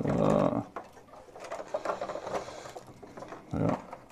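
Plastic building bricks clicking and clattering as the ship model's loose hull sections are handled and pressed back on, with a louder clatter at the start and another short burst near the end.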